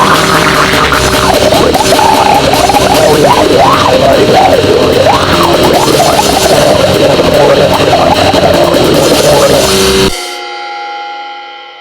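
Goregrind noise music: a loud, dense wall of distorted noise with wavering, sliding squeals through it. It cuts off abruptly near the end, leaving a ringing tone that fades away.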